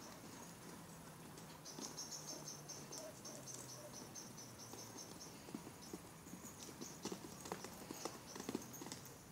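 Hoofbeats of a young foal and a mare on paddock turf: scattered soft thuds that come thicker in the second half as the foal gallops. A faint high pulsing chirp runs underneath for a few seconds.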